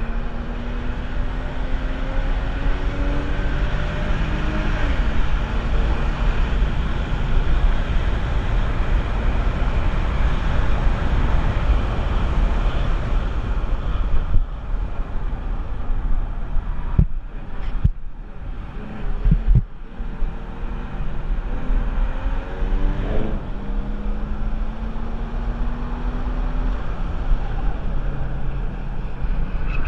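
Porsche 996 Carrera 4's 3.6-litre M96 flat-six engine pulling hard on track, its pitch rising then dropping at a Tiptronic upshift, twice, over heavy wind and road noise. A few sharp knocks come a little past halfway.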